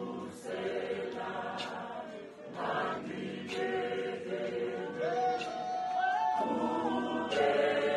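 A church congregation's mixed choir of men and women singing a hymn in harmony, without instruments, with long held notes.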